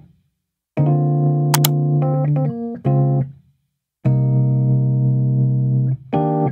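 Background music: slow sustained chords, each held for one to two seconds, with silent breaks between them.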